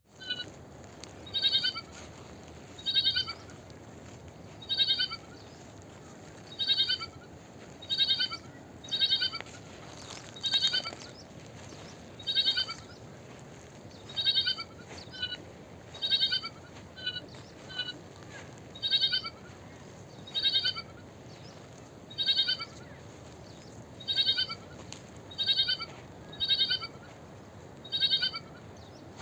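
A lamb bleating over and over: short, high calls every one to two seconds, each dropping slightly in pitch, over a steady hiss.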